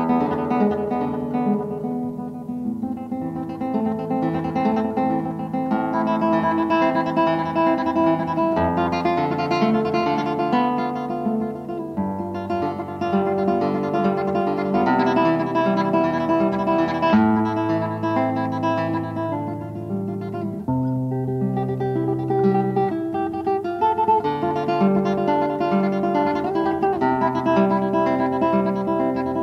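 Solo classical guitar played fingerstyle: a continuous piece of plucked notes, with low bass notes held under a melody.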